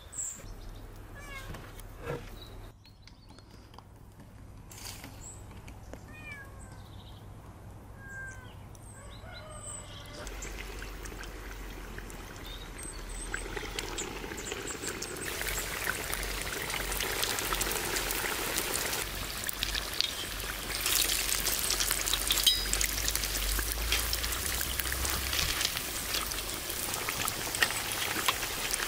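Birds chirping for about the first ten seconds, then hot oil in a cast-iron kazan sizzling and crackling as potato-dough piroshki deep-fry. The sizzle swells louder from about fifteen seconds in.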